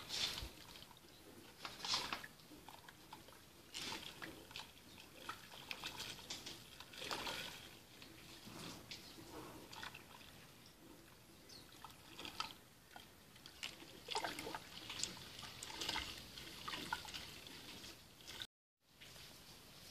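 Wooden spoon stirring a big pot of hot milk and water while handfuls of berkoukes semolina pellets are sprinkled in: faint, irregular sloshing and trickling of the liquid.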